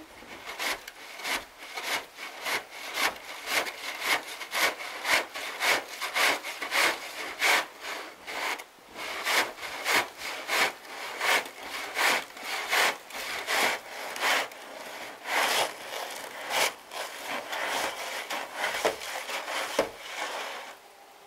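Snow shovel scraping along a snowy wooden deck in a rapid, even series of strokes, stopping just before the end.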